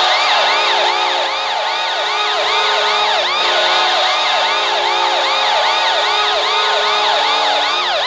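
Washington Capitals arena goal horn blasting after a goal: a held, multi-tone air horn with a rapidly whooping siren, about two and a half rises and falls a second, running with it over crowd noise.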